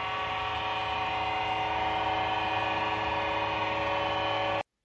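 Small submersible pump humming steadily as it circulates white vinegar through a tankless water heater to descale it, with the return flow pouring back into the bucket. The sound cuts off suddenly near the end.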